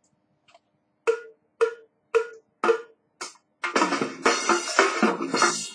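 A count-in of five sharp clicks about half a second apart, then a drum-kit backing track comes in with the rest of the band near the middle.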